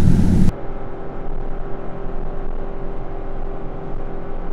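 Cabin noise of a Ram ProMaster van at highway speed, about 51 mph: steady road and engine rumble with a faint steady hum. The noise drops abruptly and loses its hiss about half a second in.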